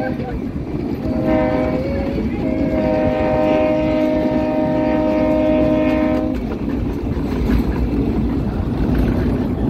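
Train horn blowing: one blast ends right at the start, a short blast comes about a second in, then a long blast of about four seconds. Under it the train runs with a steady rumble, which is all that is left for the last few seconds.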